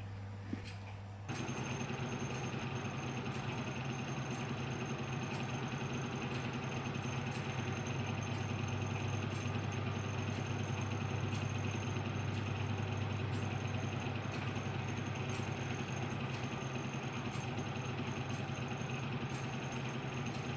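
An engine running steadily at idle with a low hum and a thin high whine. It comes in abruptly about a second in, over a quieter low hum.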